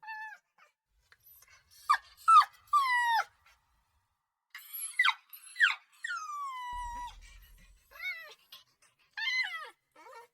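A puppy crying: short high-pitched whimpers and yelps, most sliding down in pitch, with brief silences between them and one longer falling whine about six seconds in.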